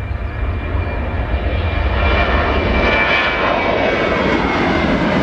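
Ryanair Boeing 737-800's CFM56 jet engines at take-off thrust as the airliner lifts off and climbs away: a loud, rushing jet noise with a high steady whine, growing louder over the first two seconds and then holding.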